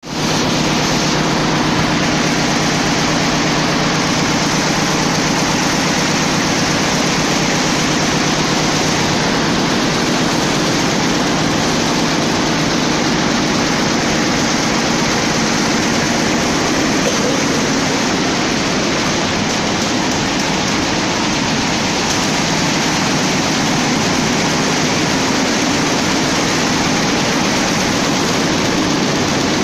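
Schiffli embroidery machine running, its long rows of needles stitching together in a loud, steady, fast-ticking mechanical clatter.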